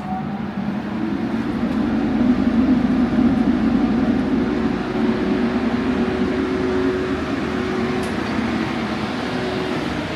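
Paint booth exhaust fan and air compressor running just after being switched on: a steady droning hum with a rushing air noise that builds over the first couple of seconds and then holds.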